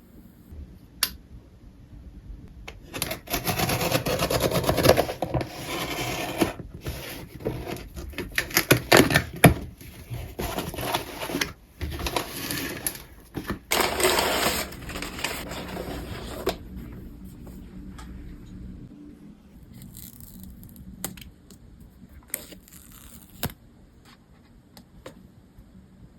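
Packaging of a new iPhone box being handled and opened: stretches of paper and cardboard rustling and scraping, then scattered light clicks and taps in the second half.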